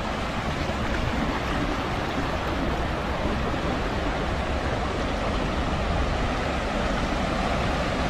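Steady rush of flowing stream water, a continuous even noise with no pauses.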